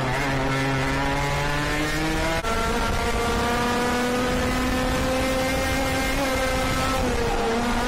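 IAME KA100 100cc two-stroke kart engine running hard at high revs, its pitch climbing slowly, with a brief dip about two and a half seconds in and a drop in revs near the end as the throttle comes off.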